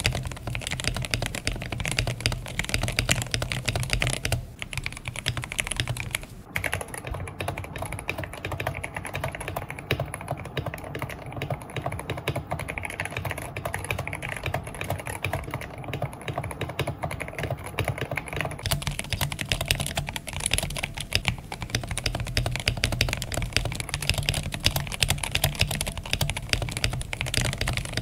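Continuous fast typing on a mechanical keyboard, dense rapid key clacks, as a sound test of the switches before and after lubing. The character of the sound changes about six seconds in and again around eighteen seconds, where the brightest, highest click noise drops away.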